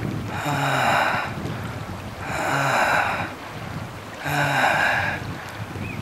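A hiker's heavy, labored breathing close to the microphone, three long breaths about two seconds apart, while walking uphill at high altitude.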